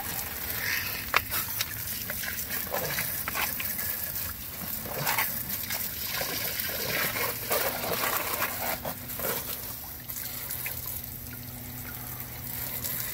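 Water jetting from a garden hose spray nozzle and splashing into a sump basin and onto wet soil, an irregular spattering trickle, filling the pit so the sump pump's float will switch it on.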